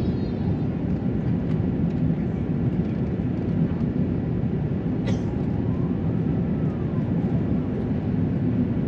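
Steady low rumble of an Airbus A350-900's cabin, from its Rolls-Royce Trent XWB engines and the airflow, heard from a passenger seat in the mid-section. A short high click comes about five seconds in.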